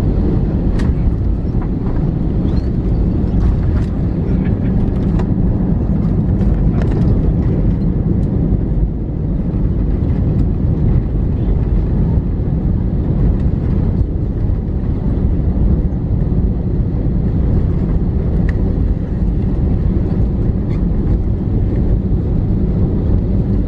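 Cabin noise of an Airbus A321 touching down and rolling out on the runway with spoilers deployed: a loud, steady low rumble of the engines and wheels. A few sharp knocks and rattles come in the first several seconds.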